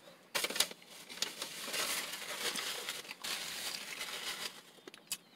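Paper fast-food packaging rustling and crinkling as it is handled, a continuous rustle for about four seconds that stops shortly before the end.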